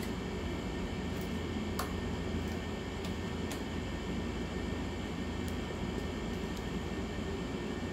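Steady low hum and hiss, with a few faint, scattered clicks of a bike multi-tool's hex key working in the top of a Suntour XCM suspension fork.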